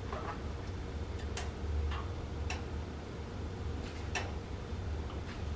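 Egg-soaked bread shallow-frying in oil: scattered, irregular pops and crackles rather than a steady sizzle, the oil still coming up to heat.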